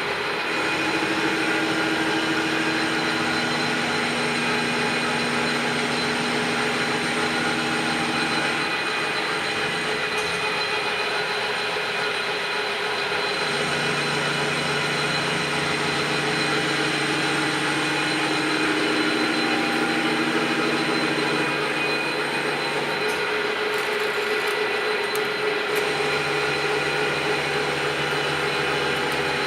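Radial drill running with a steady machine hum of many steady tones; its low note shifts a few times.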